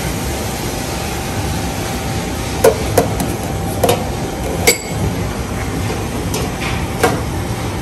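Sharp metallic knocks and clinks of stainless steel hotel pans bumped as gloved hands work in them: four between about two and a half and five seconds in, and one more near the end. They sound over a steady low background rumble.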